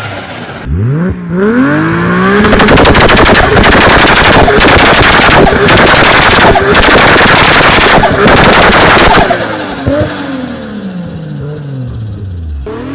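A turbocharged car engine revving hard, its pitch climbing. This is followed by several seconds of rapid, continuous bangs and crackles from the anti-lag system, and then the revs fall away.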